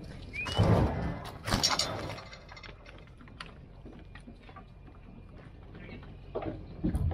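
Cattle walking up a loading chute into a livestock trailer, their hooves clattering and thumping on the ramp and trailer floor. It is loudest from about half a second to two seconds in, then drops to scattered lighter knocks.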